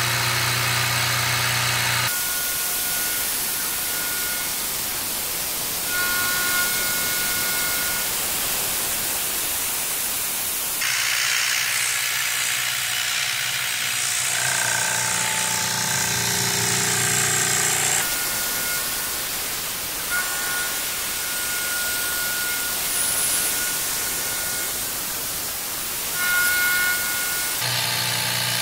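CNC milling machine cutting a metal part with an end mill under a hissing air-mist coolant spray from a Fog Buster nozzle. A thin steady tone from the cut comes and goes every few seconds as the tool makes its passes.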